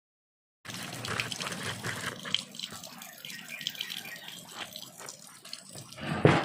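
Water running and splashing unevenly, with small clicks and spatters throughout, and one louder splash or knock near the end.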